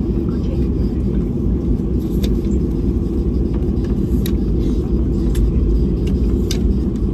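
Cabin noise of a Boeing 737-800 rolling on the ground after landing: a loud, steady low rumble of its CFM56 engines and wheels, with a few sharp clicks spread through it.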